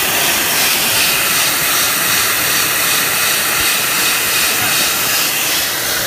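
Sanding belt joint skiving machine running: a loud, steady hissing noise from the machine at work.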